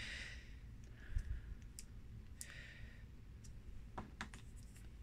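Faint handling noise: a few light clicks and taps as a watercolour paint tube is handled and put down, with two soft rustles.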